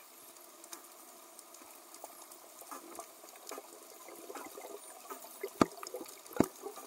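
Quiet underwater ambience: a soft crackling hiss with scattered sharp clicks that grow louder and more frequent near the end.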